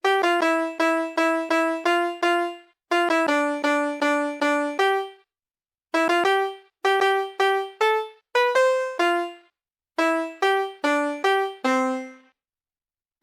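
VTech Emils Entdeckerreise toy laptop's electronic piano tones. Single notes come in quick runs of about three or four a second with short pauses between, as its colour keys are pressed in the compose-your-own-melody mode.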